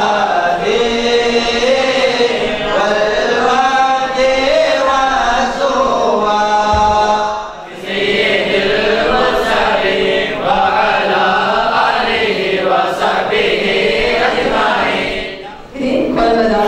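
Men chanting Arabic devotional mawlid verses in praise of the Prophet, in two long phrases with a short break about eight seconds in. Just before the end the chanting stops and a woman begins speaking.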